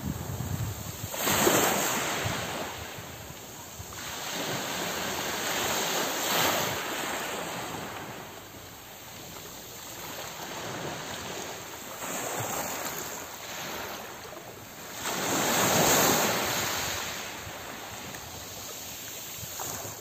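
Small waves washing onto a pebble beach, each wash swelling and falling back about every five seconds, with some wind on the microphone.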